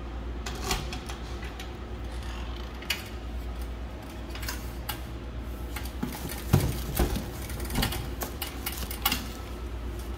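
Keys jangling and clicking in the lock of a metal parcel locker, then the locker door and plastic-wrapped packages knocking and rustling as they are pulled from the metal compartment: a series of scattered clicks and knocks, loudest about six and a half seconds in, over a steady low hum.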